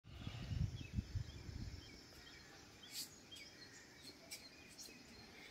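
Faint rural outdoor ambience with a few short, high bird chirps scattered through it. A low rumble on the microphone during the first two seconds.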